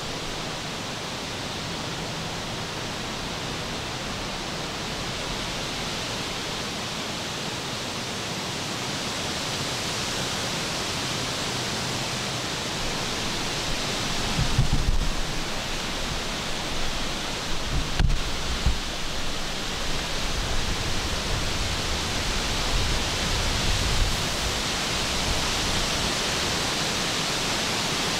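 Steady rushing hiss of outdoor forest ambience, growing slightly louder through the middle. Low thumps come about halfway through, with a sharper knock a few seconds later and smaller bumps after, as gear is handled in the tree stand.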